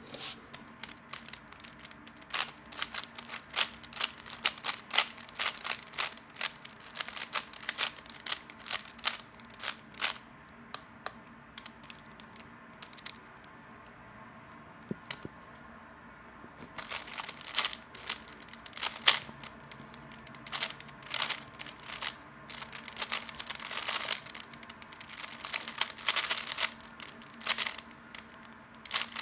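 3x3 speed cube being turned, quick runs of plastic clicks and rattles, with a pause of a few seconds in the middle.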